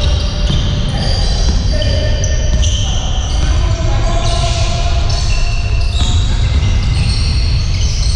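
Basketball game sounds in a gym: a ball bouncing, sneakers squeaking in many short high chirps on the court floor, and players calling out.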